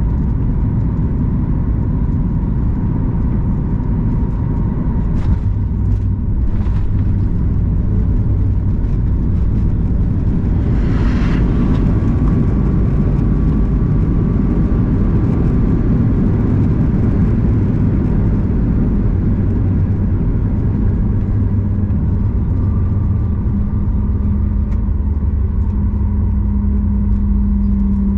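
Steady low rumble of a Boeing 737 MAX 8's engines and airflow heard inside the cabin, with a few faint clicks and a brief hiss about eleven seconds in.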